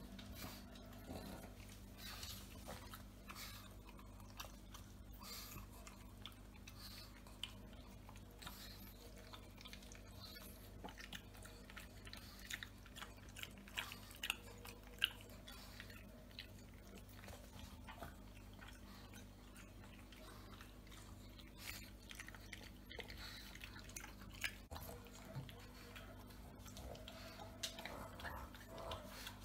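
Faint chewing and scattered small clicks of people eating at the table, over a steady low hum.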